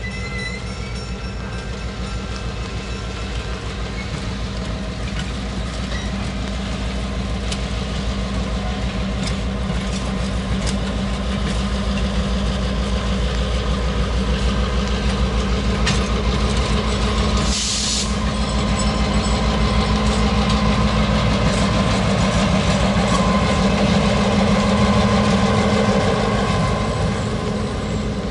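Diesel-hauled train moving past on a nearby track: a steady diesel engine drone with some rail clatter, slowly growing louder as the locomotive draws closer. A brief hiss comes about eighteen seconds in.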